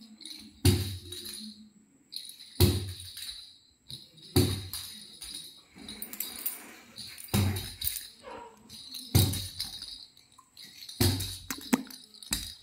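A baby's jingle ball toy with bells inside, jangling in short bursts about every two seconds as it is moved in a hand.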